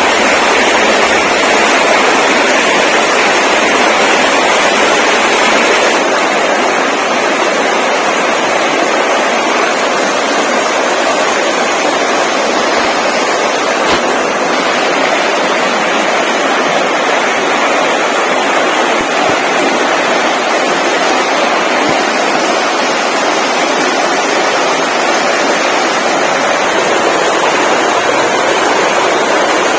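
Steady, loud rushing noise with no distinct events, easing slightly about six seconds in.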